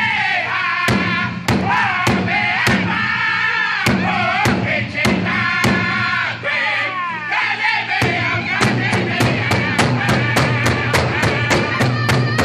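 Powwow drum group: several men singing in unison in high phrases that slide downward, over a large shared hide drum struck together with beaters. The beat is steady at under two strokes a second, then quickens to about three a second some eight seconds in.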